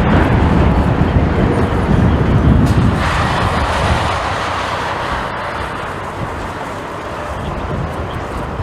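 Jet airliner's engines rumbling as it passes, the sound slowly fading after about three seconds, with gusty wind buffeting the microphone.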